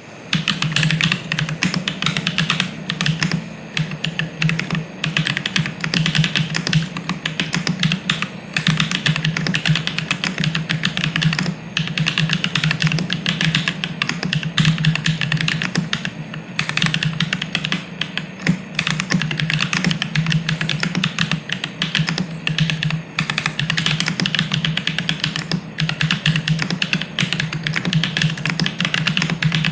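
Continuous fast typing on a Synthesis60 mechanical keyboard: lubed Holy Panda tactile switches in an FR4 plate, with ABS Cherry-profile keycaps and no case dampener. A dense, unbroken run of keystrokes, pausing only for a moment now and then.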